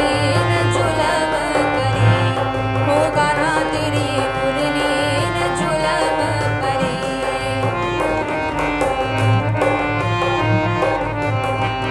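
Hindi Krishna bhajan: a woman sings over harmonium and a dholak that keeps a steady beat. Near the end the voice drops out and the harmonium carries the tune over the dholak.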